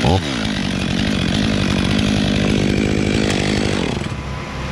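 Stihl two-stroke chainsaw at full throttle cutting through a thick magnolia trunk. The engine pitch dips and climbs back right at the start, runs steadily, then eases off near the end.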